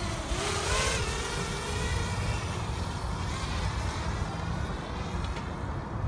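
Parrot Bebop 2 quadcopter's propeller motors whining as it speeds off, the pitch rising in the first second, then sliding down and fading as it flies away. Wind rumbles on the microphone underneath.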